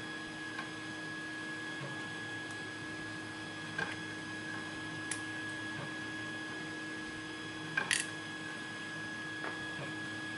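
3D printers running in the background, a steady hum with a thin high whine. A few light clicks from the padlock being taken apart, the two clearest about four and eight seconds in.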